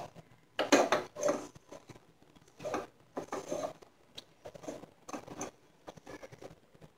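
A hand squeezing and tossing a dry mix of shredded cabbage, chopped onion and chana dal with gram flour and rice flour in a bowl: irregular rustling, crunching strokes, thinning out near the end.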